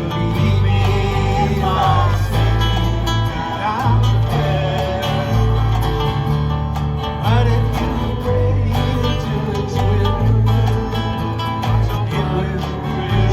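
Live acoustic country-folk band playing an instrumental passage: strummed guitars over a steady bass, with a lead line that bends up and down in pitch.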